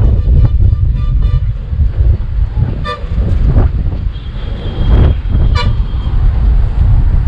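Two short horn toots, about three seconds in and again near five and a half seconds, over a heavy, unsteady low rumble.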